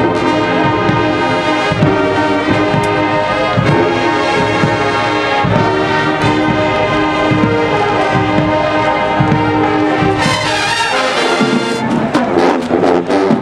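Marching band brass section playing full, sustained chords. About ten seconds in, the held brass gives way to a crash and then sharp drum hits.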